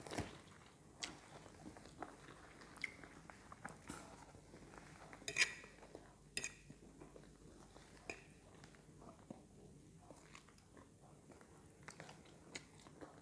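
Faint chewing of a mouthful of stir-fried noodles (pancit kanton), with scattered small mouth smacks and clicks, a slightly louder cluster about halfway through.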